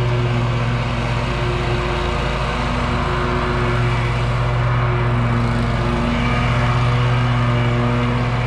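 An engine running steadily at an even speed: a constant low hum with overtones, unchanged throughout.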